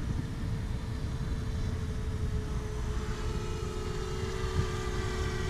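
DJI Mavic Air quadcopter's propellers whining in a steady tone, the whine and its overtones growing stronger about halfway through, over a low rumble.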